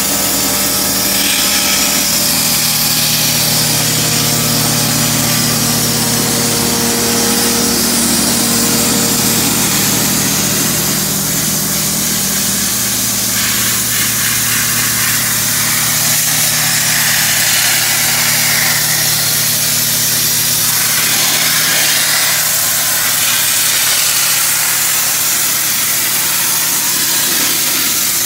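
Wet abrasive blasting of steel girders: a steady, loud hiss of grit and water jetting from the blast nozzle, over the steady drone of the trailer-mounted air compressor's engine.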